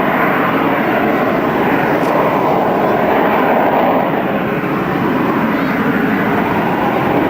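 Loud, steady jet noise from a Harrier GR7's Rolls-Royce Pegasus turbofan engine, easing slightly about four seconds in.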